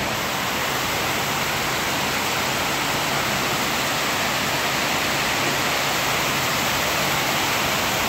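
Heavy rain pouring steadily onto a flooded paved yard: a loud, even hiss with no letup.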